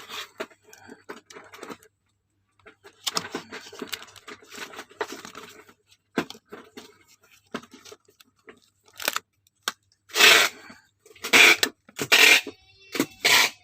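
Packaging being handled and torn open: irregular rustling and scraping, with several louder, short tearing bursts in the last few seconds.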